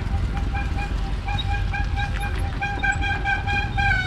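Vehicle horn honking in short repeated toots of one steady pitch, the toots coming quicker in the second half, over a steady low rumble of engines.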